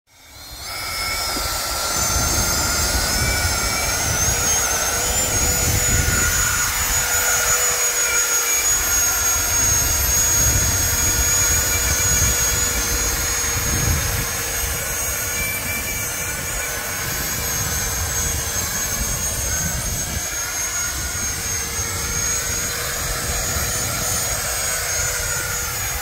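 Twin 90 mm Vasa electric ducted fans of an RC F-35B VTOL model hovering: a steady high whine made of several held tones. Under it is a gusty low rumble of wind buffeting the microphone. The sound fades in at the start.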